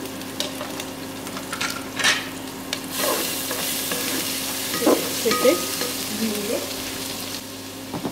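Red chilli, cumin and coriander powder frying in oil with ginger-garlic paste in an aluminium pot, stirred with a spatula that scrapes against the pot. A stronger sizzle starts about three seconds in and dies down near the end.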